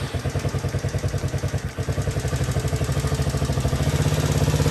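110cc ATV's single-cylinder four-stroke engine running just after firing up on a newly fitted carburetor and fresh gas, an even run of rapid firing pulses. It stumbles briefly about two seconds in, then steadies and gets a little louder. It is running again after not running before the carburetor was replaced.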